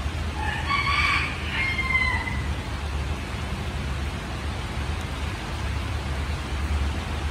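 Steady rain hiss over a low rumble, with a rooster crowing once, about half a second in, a call of roughly two seconds that drops in pitch at its end.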